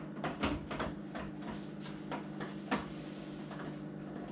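Light plastic clicks and taps as the Omega VSJ843QS juicer's plastic parts are handled and worked into place, a quick run of clicks at first and a few scattered ones later, over a steady low hum.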